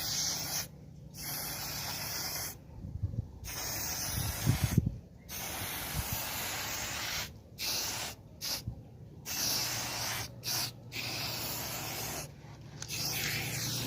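Aerosol spray-paint can hissing in a series of short bursts with brief pauses between them, the stop-start rhythm of lettering being sprayed onto a wall.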